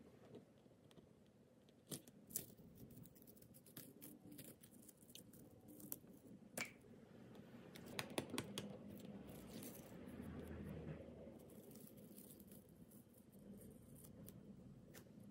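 Faint, scattered clicks, taps and rustles of watercolour painting materials being handled, over low room noise.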